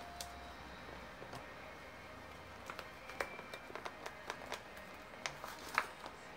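Scattered light clicks and taps of plastic packaging being handled as Nerf Mega foam darts are taken out of their pack, over a low steady hum.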